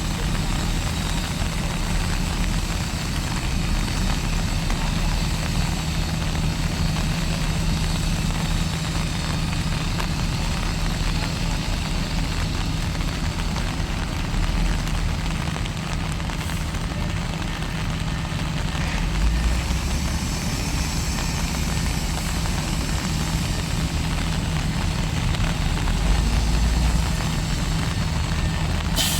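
Heavy diesel engine of earthmoving machinery running steadily, a constant low drone with an even hiss over it.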